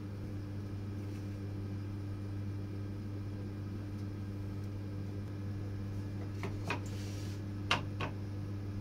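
Steady low machine hum, with a few light wooden knocks and a short scrape about six to eight seconds in as a long wooden board is set down on the workbench; the loudest knock comes near the end.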